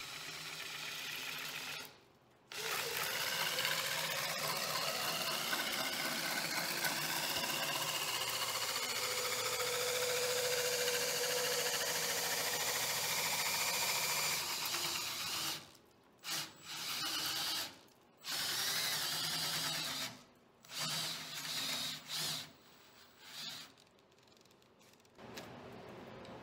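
A drill spinning an octagonal walnut rod through a dowel-making jig, with a clamped chisel shaving it round. It runs steadily with a brief stop about two seconds in. Over the last ten seconds it goes in short stop-start bursts.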